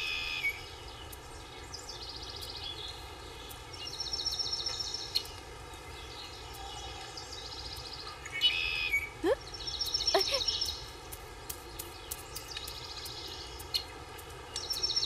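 Outdoor rural ambience with birds calling: short, rapidly pulsed high chattering trills repeat every second or two over a steady background hiss, with two quick upward-sweeping calls a little past the middle.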